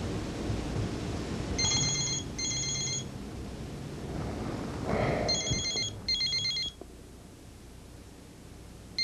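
Mobile phone ringing with a trilling electronic ring in double rings, one pair about every three and a half seconds: an incoming call not yet answered. A short rustle comes just before the second pair.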